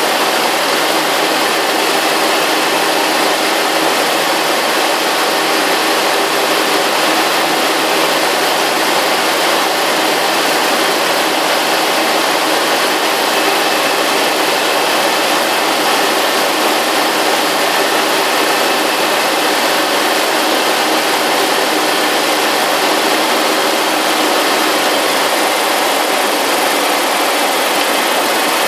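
JetFox light aircraft's engine and propeller running steadily, heard from inside the cabin, with an even rushing hiss laid over it and no change in power.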